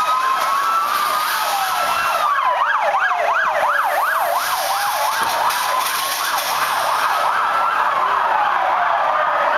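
Sirens of several Mossos d'Esquadra police vans sounding together: a slow rising-and-falling wail throughout, with a fast yelp joining in for a couple of seconds about two seconds in.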